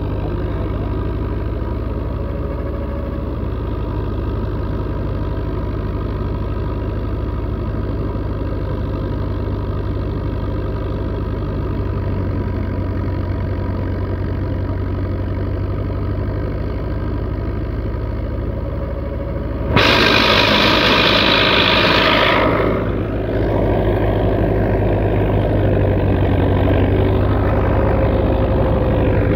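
Belarus tractor's diesel engine running steadily under load as it drives a wheat thresher, with the thresher's churn mixed in. About two-thirds of the way through a sudden louder rushing noise comes in for about three seconds, and the machinery then runs on louder.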